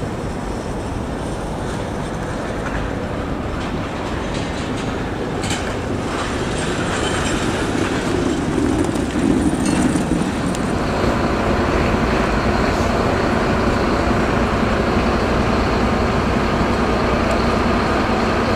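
Steady outdoor rumble of road vehicles, with a low engine hum growing louder about eight seconds in.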